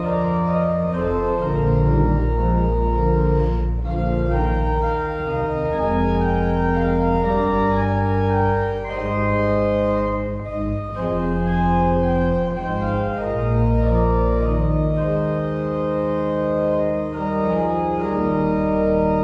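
Organ playing hymn music in held chords that change every second or two, over a deep sustained bass line.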